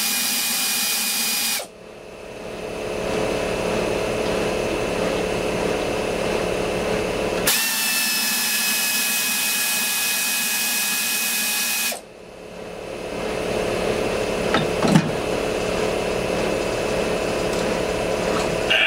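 Pneumatic ratchet running in two bursts, a short one that stops about a second and a half in and a longer one in the middle, spinning out the bolts that hold a lathe chuck to its backing plate. A steady machine hum continues between the bursts, with a single clack near the end.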